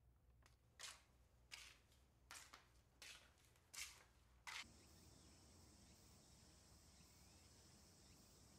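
Six slow footsteps on a concrete floor, evenly spaced about 0.7 s apart. Then a steady high-pitched hiss of outdoor ambience begins.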